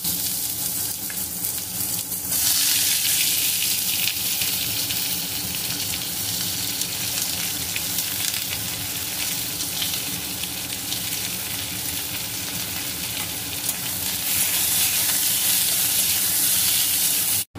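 Sliced onions, green chilli and potato batons sizzling in hot oil in an aluminium kadai, a steady frying hiss that gets louder about two seconds in. A metal spatula stirs them near the end.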